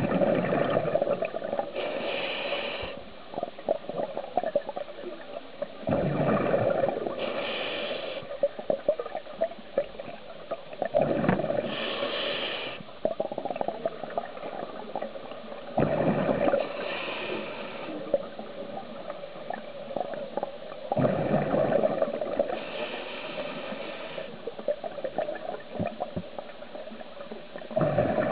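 Scuba diver breathing through a regulator underwater, about one breath every five seconds. Each breath brings a gurgling rush of exhaled bubbles and a higher hiss from the regulator.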